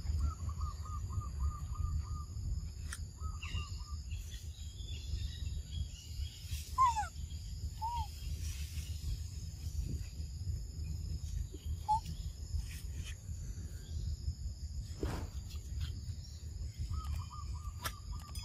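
Tropical forest ambience: a steady high insect drone under a low rumble. Bird calls come through it, a quick run of repeated notes near the start and again near the end, and a few short single calls in the middle.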